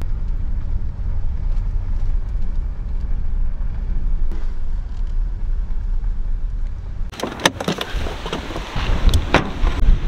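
Steady low rumble of a car driving, heard from inside the cabin. About seven seconds in it gives way abruptly to gusty wind buffeting the microphone.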